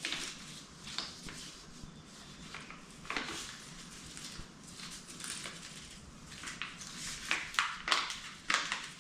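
Rustling and light clicks and clinks of a packaged pen-turning mandrel shaft and other small tools being handled, with a quick run of sharper clicks near the end.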